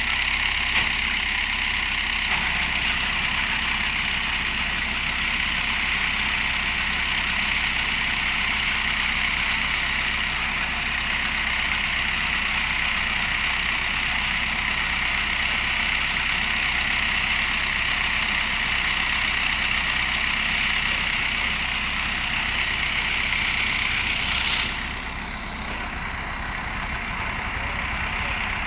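Engine running steadily at idle, with a short dip in level about 25 seconds in.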